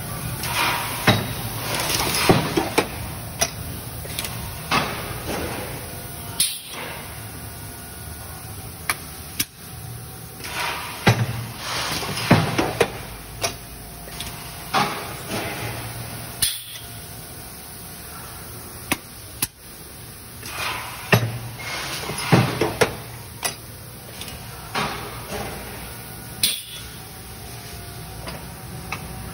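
Steady low hum of industrial machinery with irregular knocks and clanks, one every second or two.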